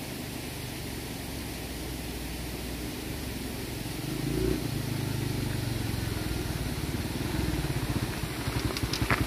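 Small Honda motorcycle engine running as the bike rides up a dirt road, growing louder as it comes close. Near the end it settles into an even, pulsing idle close by.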